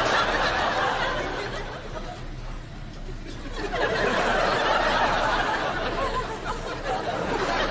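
Studio audience laughing in swells: a burst at the start that dies away, then a second, longer wave about four seconds in.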